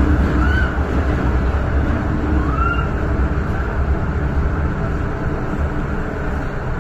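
MTR M-train electric multiple unit moving through an underground station, heard from inside the car: a steady low rumble of wheels on rail and running gear, with two short rising-and-falling squeals about half a second and two and a half seconds in.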